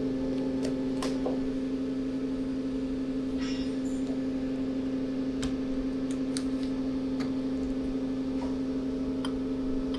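Steady electrical hum of running equipment, with a few light clicks and taps as the metal orbital weld head is opened and a steel tube is handled in it.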